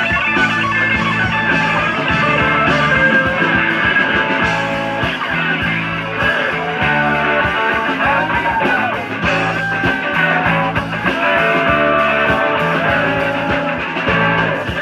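Live rock band playing, led by a guitar that bends notes about halfway through, over a steady bass and drum pulse.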